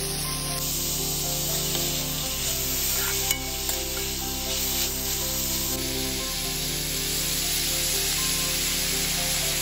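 Shredded vegetables sizzling in a hot wok as they are stir-fried and turned with a spatula, with background music playing.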